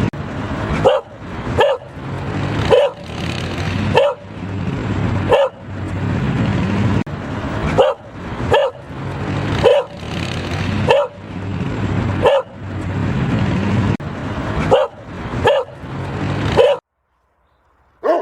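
Cocker spaniel barking repeatedly, single sharp barks about once a second over a steady background noise. The barking stops abruptly near the end.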